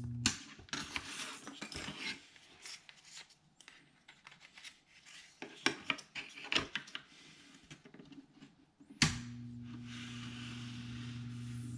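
The steady low hum of a Proxxon hot wire foam cutter stops with a sharp click right at the start. Hands then handle foam pieces and a wooden guide on the cutter's table, making scattered light clicks, knocks and rubbing. About nine seconds in, another sharp click brings the hum back.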